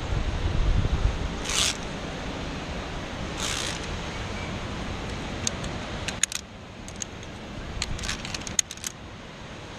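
Via ferrata carabiners on a steel safety cable: two short zipping scrapes as they slide along the cable, then bursts of light metallic clicks and clinks. Wind rumbles on the microphone during the first second or so.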